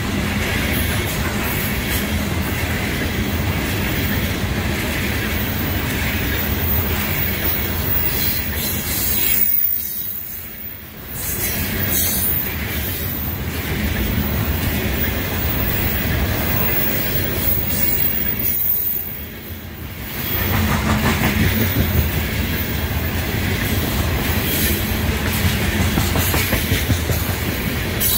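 Freight train of open-top coal cars rolling past at close range: a steady din of steel wheels running on the rails. The noise drops away briefly twice, about ten and nineteen seconds in.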